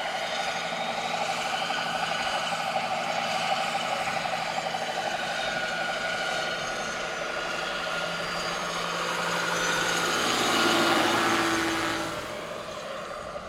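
Large radio-controlled scale model Mil Mi-8 helicopter in flight: a steady, high whine from its drive and rotors. The sound swells as it passes close about ten to eleven seconds in, then drops away quickly.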